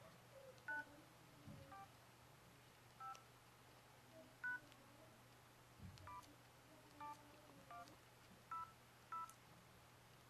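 Quiet keypad tones of an LG KF600 mobile phone: about nine short two-tone DTMF beeps, one per key press, spaced unevenly about a second apart as a service code is keyed in.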